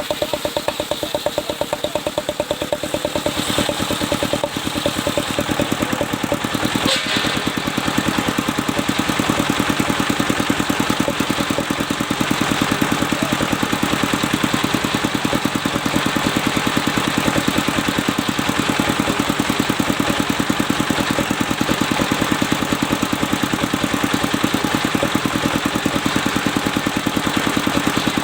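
Engine-driven sawmill running, its engine giving a fast, even thumping beneath the saw as it cuts a mahogany log; the sawing noise grows louder from about three seconds in and holds steady from about eight seconds on.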